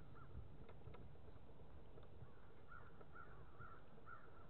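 A bird calling faintly in a quick run of about six short calls in the second half, over a low steady rumble of wind or water.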